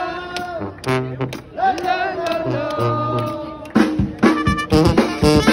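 Street brass band playing: held horn notes, then about four seconds in the full band comes in with loud, sharp rhythmic hits.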